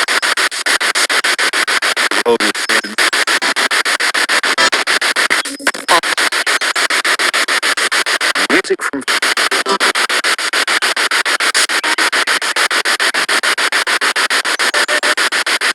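Spirit box radio sweeping through stations, a steady loud static hiss chopped into rapid even pulses several times a second, with brief snatches of radio sound breaking through now and then.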